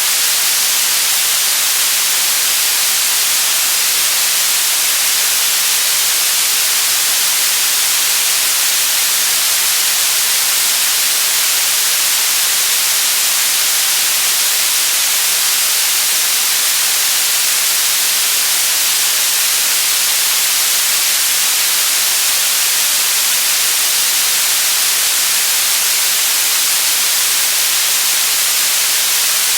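Steady electronically generated white noise: a loud, even hiss that does not change, with most of its energy high up.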